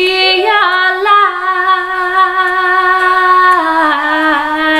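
A woman singing unaccompanied, holding one long note that steps a little lower about three and a half seconds in.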